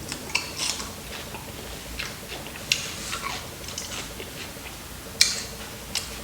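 Person chewing food, mostly cucumber, rice and sausage, with irregular short wet clicks and crunches; the sharpest comes about five seconds in.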